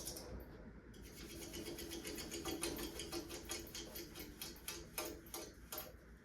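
1981 Emerson plastic ceiling fan coasting down after being switched off, ticking and clicking as it turns. The ticks come quickly at first and grow sparser as the fan slows.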